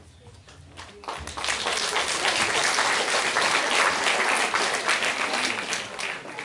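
Audience applause in a hall, a dense patter of many hands clapping that swells about a second in and dies away near the end.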